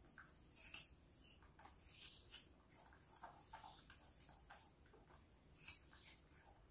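Near silence, broken by faint scattered clicks and rustles of food being handled and eaten, with a few sharper ticks, the loudest a little under a second in.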